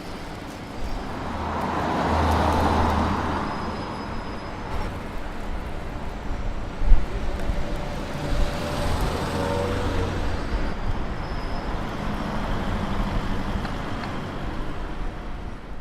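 City street ambience of road traffic: one vehicle passes close about two seconds in, with a single sharp knock around the middle and other traffic going by steadily.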